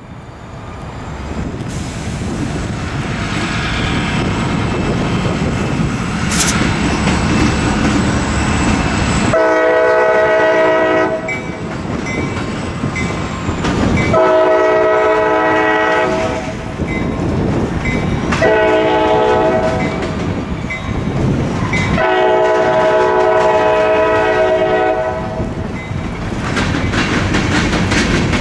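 Diesel freight locomotive, a CSX EMD GP40-2, rumbling louder as it approaches, then sounding its air horn in four blasts: long, long, short, long, the grade-crossing warning signal. Freight cars clatter over the rail joints near the end.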